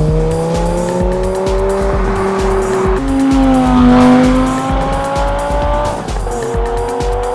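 Lamborghini Gallardo's V10 engine accelerating hard, rising in pitch and dropping at an upshift about three seconds in and again about six seconds in. Background music with a steady beat runs underneath.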